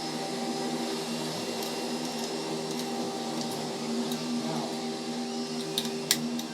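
A vacuum cleaner runs steadily in the background with a droning hum. Two or three sharp small clicks come near the end, from parts being handled.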